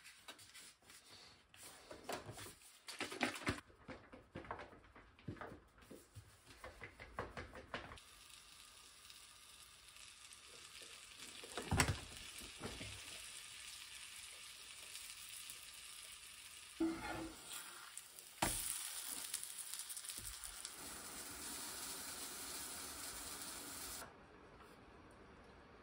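Pancake batter shaken in a plastic bottle, irregular sloshing and handling noise for the first several seconds. Then batter sizzling in butter in a cast-iron frying pan, a steady hiss that grows louder about two-thirds of the way in and cuts off suddenly near the end.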